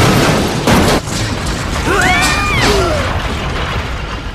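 Animated sound effect of metal elevator doors being smashed open: a loud crash through the first second, then rumbling debris, with a short pitched sound that rises and falls about two seconds in.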